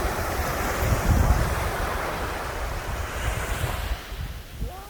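Ocean surf: a wave breaking and washing in, loudest about a second in and fading away over the next few seconds, with wind rumbling on the microphone.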